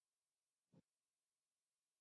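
Near silence, broken once about three quarters of a second in by a single brief, soft tap.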